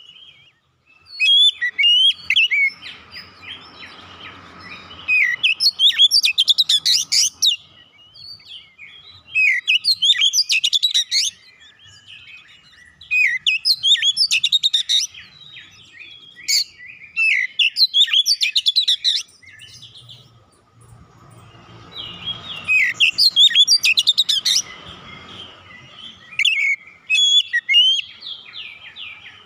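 Oriental magpie-robin singing loud phrases of rapid, varied whistles, chirps and trills, each lasting a second or two, with short pauses between them.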